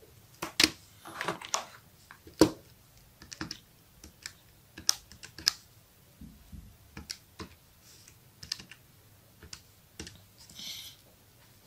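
Keys of a Casio fx-991ES PLUS scientific calculator being pressed as a calculation is typed in: an irregular string of short plastic clicks, with a louder knock about two and a half seconds in.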